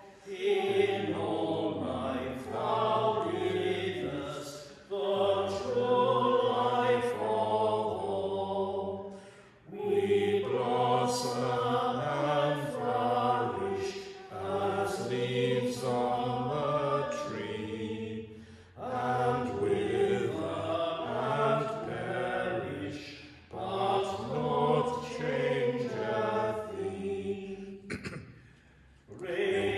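A hymn sung in lines of about four to five seconds each, with a short break for breath between lines.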